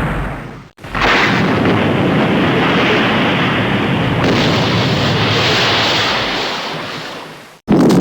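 Stock sound-effect clips played back to back. A dense noisy rumble starts suddenly about a second in and dies away slowly near the end, and the next clip starts right after a short silence.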